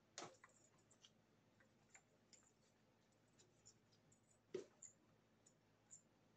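Faint, scattered clicks and light taps of glass Christmas ornaments knocking together as they are shifted in a box, about half a dozen, the loudest about four and a half seconds in, with near silence between.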